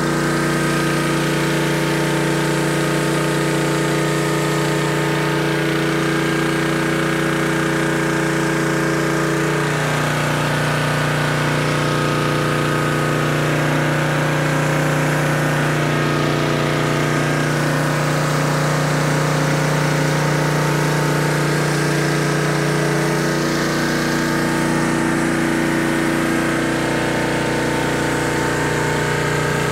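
Small gasoline engine of a pressure washer running steadily, its note changing about ten seconds in and again a few seconds before the end. Behind it is the hiss of a rotating surface cleaner spraying water onto concrete.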